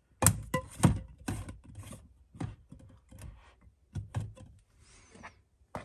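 Glass candle jars knocking and clinking as they are handled and set on a shelf: a few sharp knocks in the first second, then scattered lighter taps.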